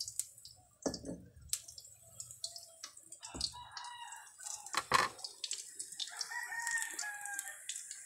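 A rooster crowing twice, each crow a drawn-out call lasting over a second, the first starting about three and a half seconds in and the second about six seconds in. Sharp clicks and knocks come through between and over the crows, the loudest about a second in and about five seconds in.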